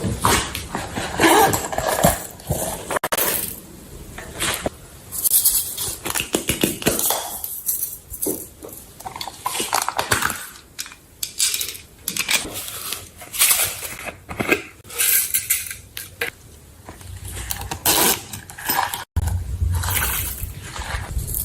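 Irregular clinking, scraping and rattling of a utensil and containers while making slime.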